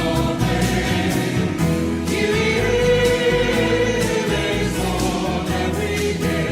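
A choir singing sacred music with instrumental accompaniment: sustained notes over a steady bass, with one long held note in the middle.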